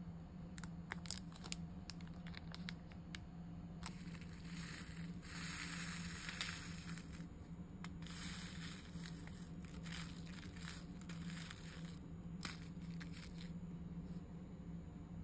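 Small plastic bead packet and jar being handled: light clicks, then long stretches of crinkling and rattling as the resealable bag of tiny pink decoration beads is worked and the beads go into a small clear plastic jar, with the jar's plastic lid handled near the end.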